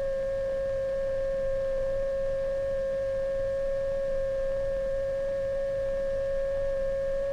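Electronic sine-wave tone at a steady mid pitch: the very slow rising glissando of an experimental film's soundtrack, which changes too slowly to be heard moving here. A faint low hum lies beneath it.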